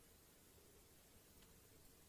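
Near silence: faint steady background hiss with a low hum.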